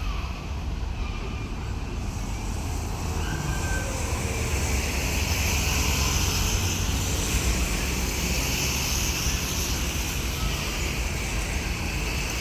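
Heavy track-maintenance rail vehicle with three ballast wagons running on the line: a steady low diesel rumble with a rushing hiss that swells in the middle and then eases.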